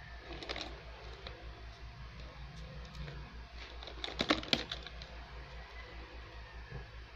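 Hard plastic building-toy pieces clicking and clacking together as they are handled, with a quick cluster of louder clacks about four seconds in. A steady low hum runs underneath.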